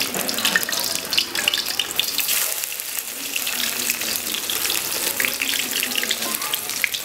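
Whole fish sizzling in hot oil in a wok: a steady crackle with many quick pops.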